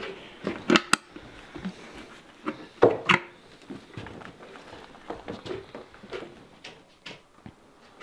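A series of sharp knocks and taps on wood, loudest in two pairs about a second in and about three seconds in, with quieter tapping and shuffling between.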